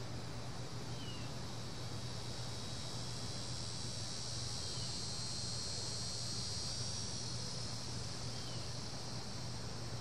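Cicadas droning in a steady high-pitched chorus that swells slightly midway, over a low steady hum.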